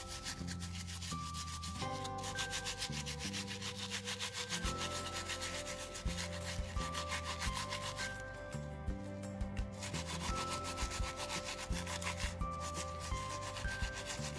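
Bristles of a soapy plastic nail brush scrubbing fingernails in quick rubbing strokes, with a short pause about eight seconds in. Soft background music runs underneath.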